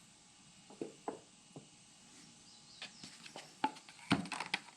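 Scattered light clicks and taps of a funnel being handled and set into the engine's oil fill, a handful of separate knocks, the loudest near the end.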